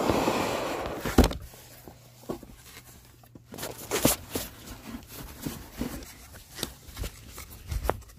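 Packaging handling noise: a paper shopping bag rustling for about a second, a sharp knock, then quieter scattered rustles and taps as a cloth dust bag is handled.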